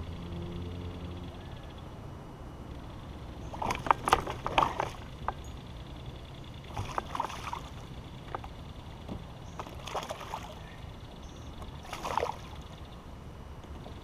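A hooked smallmouth bass splashing and thrashing at the surface beside the kayak in four short bursts, about four seconds in, then roughly every three seconds.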